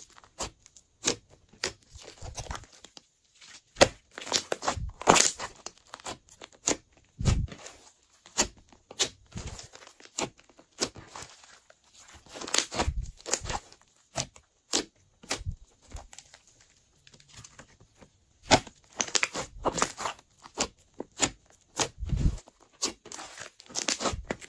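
Glossy slime being mixed, with irregular short pops and crackles that come in bunches and pause now and then.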